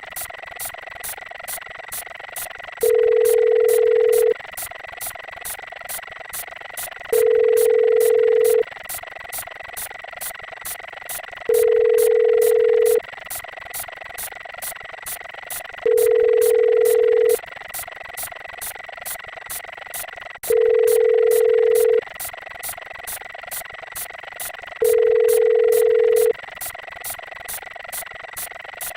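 Telephone ringing-tone sound effect: a single steady tone about a second and a half long, repeated seven times at intervals of about four and a half seconds, like a line's ringback tone. Behind it run a steady hiss and a fast, even ticking.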